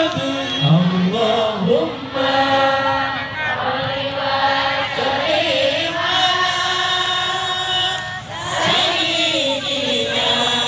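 A group of men's voices chanting sholawat, devotional praise of the Prophet, together in long held, wavering lines, with a brief break about eight seconds in.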